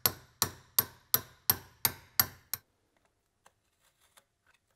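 Hammer tapping a brass drift punch to drive a spring pin out of a gear pump's rear cover: eight sharp metallic strikes, evenly spaced about three a second, stopping about two and a half seconds in.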